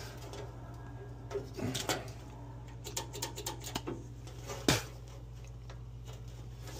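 Scattered clicks, rattles and knocks of hands working among the wiring and fittings inside an open Burnham Alpine boiler cabinet, the sharpest knock a little under five seconds in. A steady low hum runs underneath.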